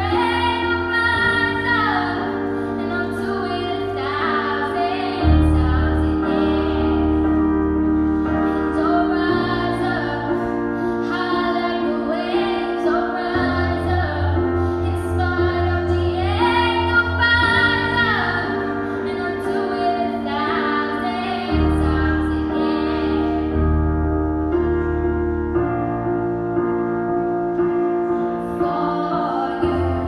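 A 12-year-old girl singing a slow song into a microphone, holding long notes and sliding between them, over an accompaniment of piano and low bass chords that change every few seconds.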